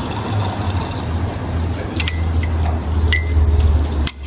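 A few short, sharp clinks of ceramic cups and saucers, two of them ringing briefly, over a steady low hum.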